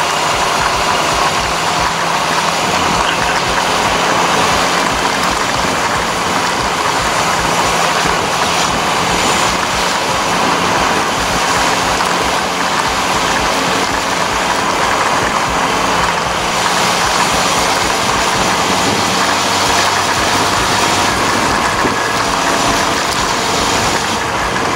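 Honda CB400 Super Four's inline-four engine running at a steady pitch while riding, heard on board under a constant rush of air and road noise.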